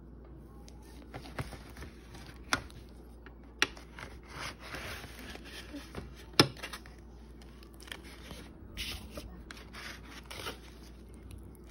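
A table knife cutting through a baked pie crust and scraping against the foil pie tin, with a few sharp taps, the loudest a little past the middle.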